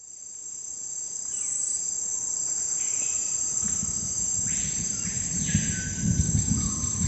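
Song intro: a steady, high cricket chirring fades in at the start. About halfway through, a low bass beat and soft synth swells come in underneath it.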